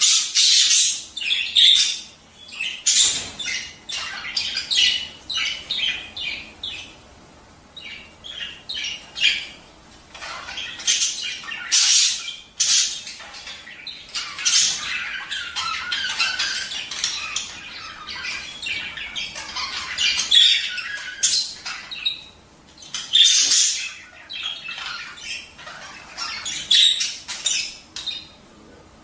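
Budgerigars chattering and squawking in rapid runs of short high calls with brief pauses between runs: the courtship chatter of budgies, used to bring pairs into breeding condition.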